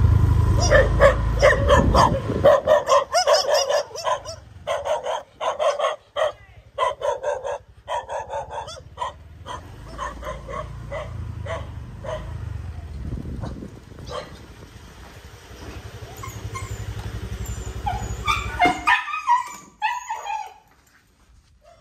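Dogs barking and yipping excitedly in rapid bursts, densest through the first ten seconds, with whining calls near the end. A low engine rumble runs under the barking at first and again later, then cuts off about nineteen seconds in.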